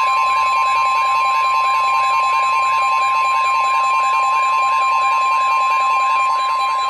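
Weather-radio warning alarm tone: one loud, steady single-pitched tone held without a break, announcing a new warning message. A fainter, rapidly repeating warble runs underneath it.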